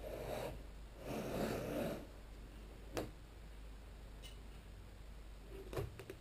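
Handling noises from setting a large plywood panel in place: two short scuffing bursts in the first two seconds, one sharp knock about three seconds in, and a few quick knocks near the end.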